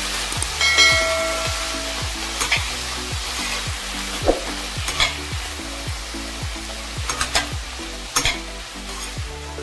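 Chopped vegetables sizzling in hot oil in a steel kadhai while being stirred and tossed with a slotted spatula, the spatula scraping against the pan several times. A short chime sounds about a second in.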